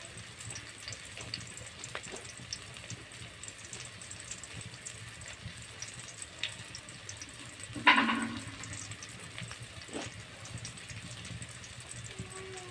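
Steady hiss of food cooking, with scattered light clicks, and one loud, short sneeze about eight seconds in.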